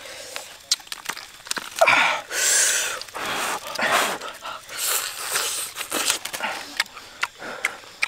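Close-up eating sounds of cooked duck being torn apart and eaten by hand: many wet smacking clicks and several breathy slurps.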